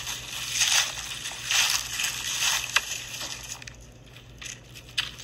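Footsteps crunching on gravel at a walking pace, fading after about three and a half seconds, with a sharp click near the middle and another near the end.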